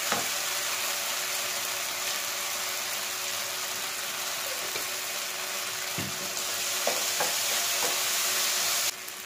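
Diced carrot and capsicum sizzling in hot oil in a non-stick frying pan, stirred with a wooden spatula that knocks against the pan a few times. The sizzle drops suddenly near the end.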